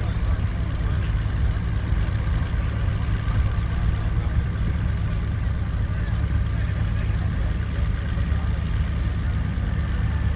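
Drag-race cars idling at the start line: a steady low rumble with no revving or launch.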